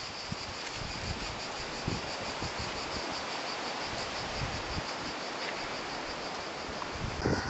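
Cicadas chirring in a steady, high-pitched, fast-pulsing chorus. A few faint low knocks sound under it, and a short louder sound comes near the end.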